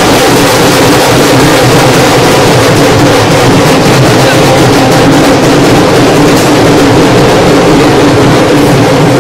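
Loud, steady hubbub of a dense crowd, many voices blended together without a break.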